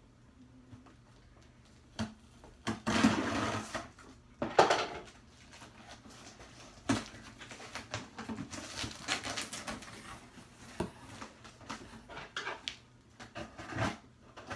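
A mailed package being opened by hand: rustling and crinkling of packaging with scattered clicks, two louder rustling bursts about three and four and a half seconds in, then a run of smaller rustles and clicks.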